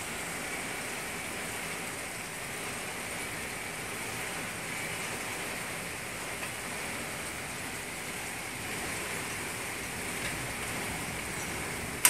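Steady rain falling on a lawn and lake, an even hiss with no breaks. A single sharp knock right at the end.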